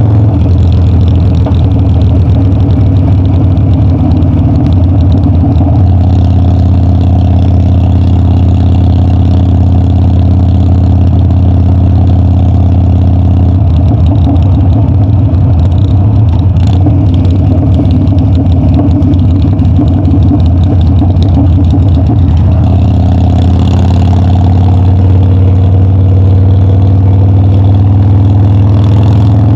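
Harley-Davidson Dyna's V-twin engine running while riding, loud and steady, its pitch stepping up and down with throttle and gear changes and rising near the end as the bike accelerates.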